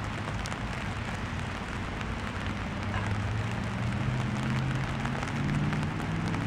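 Steady rain hiss with scattered drop ticks. In the second half a low droning hum of a distant motor comes in, slowly rising in pitch.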